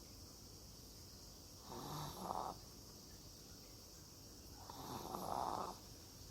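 An 11-year-old dog snoring in its sleep: two snores about three seconds apart, each lasting about a second.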